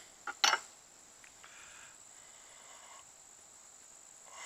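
Two sharp knocks about half a second in, a kitchen knife being set down on a wooden cutting board, then soft rustling as the toasted sandwich halves are handled. Under it all runs a steady high-pitched insect trill.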